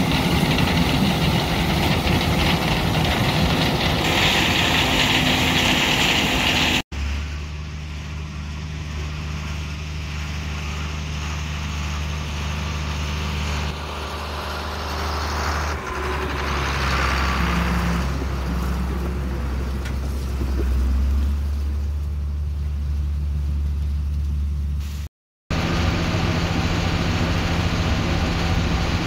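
Combine harvester working through standing corn, a loud, noisy machine sound for the first several seconds. It cuts to a John Deere 4855 tractor's six-cylinder diesel engine running at a steady low drone beside its grain cart. Near the end it cuts again to the same engine heard loud from inside the tractor cab.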